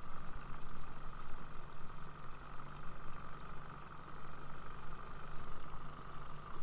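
Boat motor running steadily at trolling speed: a constant low hum with a steady higher whine above it.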